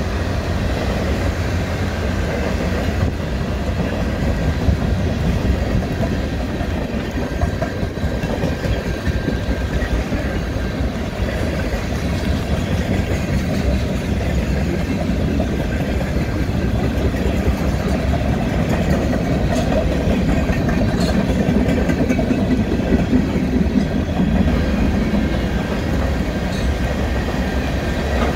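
A string of freight tank cars rolling past, steel wheels on the rails making a steady rumble.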